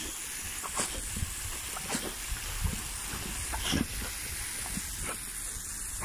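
Garden hose spray nozzle hissing steadily as its jet sprays out, with short irregular snaps and splashes as a boxer dog bites at the stream of water.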